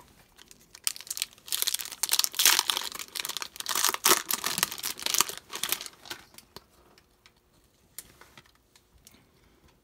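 Foil wrapper of a Panini Absolute Football trading-card pack being torn open and crinkled: a dense crackle from about a second in until around six seconds. After that come faint ticks as the cards are slid out and handled.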